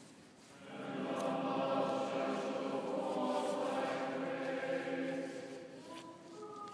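Men and boys choir singing sustained, chant-like chords that echo in a large cathedral. The singing swells in about a second in and thins to a few held notes near the end.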